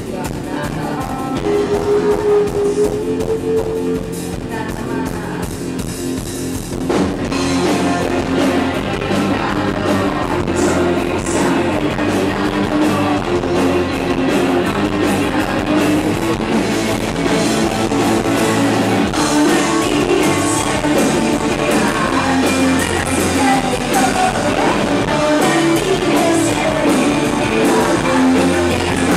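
Live rock band playing: a singer's voice through the PA over electric guitar and drums. The band comes in fuller with a sudden hit about seven seconds in.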